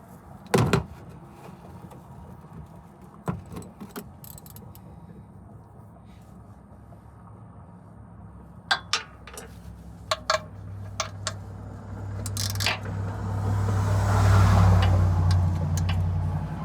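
Sharp metal clinks and taps of tools and parts being handled during a truck oil change, a few at a time, then a low steady hum that swells up over the last few seconds.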